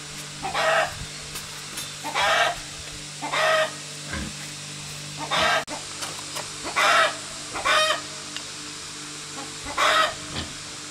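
Chicken clucking: about seven short calls spaced one to two seconds apart, over a steady low hum.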